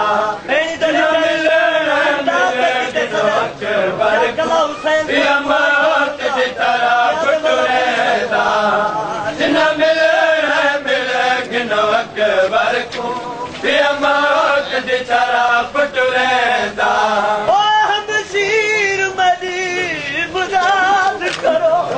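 Male voices chanting a Punjabi noha, a Shia mourning lament, the sung lines wavering and repeating in a refrain.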